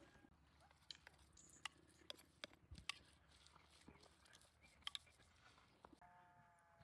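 Near silence, with scattered faint clicks and taps of hands working. Near the end a faint, steady animal call begins.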